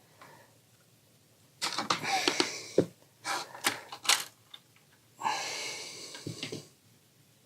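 Hands working on the opened projector's plastic and metal parts: two stretches of rustling and scraping, with a few sharp clicks in between.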